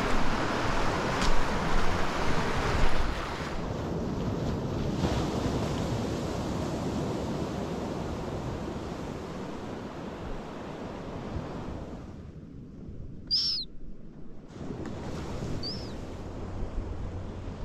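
Ocean surf washing in steadily, with wind gusting on the microphone, loudest in the first few seconds. Two short high chirps, each falling in pitch, come near the end.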